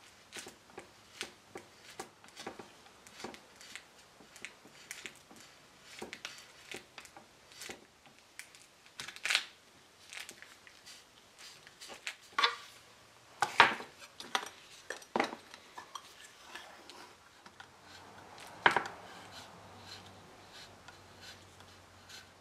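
Steel putty knife scraping and tapping against a wooden table frame as putty is pressed into cracks in the joints: an irregular run of short scrapes and clicks, with a few louder ones in the second half.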